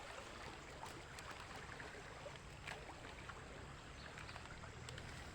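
Faint, steady rush of a rain-swollen stream, with a few soft footsteps on the wet bank.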